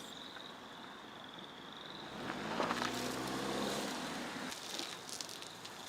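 A car engine swells and fades over about two seconds as a car goes by, over a steady high-pitched whine.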